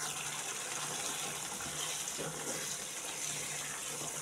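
A steady hiss with a faint low hum, with faint sounds of a wooden spoon stirring thick stew in a metal pot.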